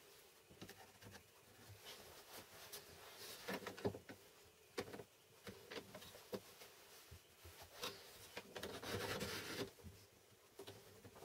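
Light handling noise of a plywood jig and a digital angle gauge: scattered clicks and knocks as the gauge is set down and moved on the jig, then a longer stretch of wood rubbing and scraping near the end as the jig is tilted upright.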